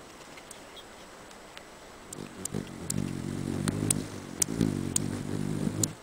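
A hummingbird's wings humming as it hovers in to its nest. The low buzzing hum starts about two seconds in, grows louder, and stops abruptly when the bird lands.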